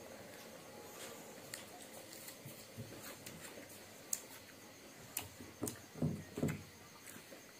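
Faint handling and eating sounds at a table: scattered small clicks from fingers working pieces of green fruit, with a few soft low thumps between about five and six and a half seconds in.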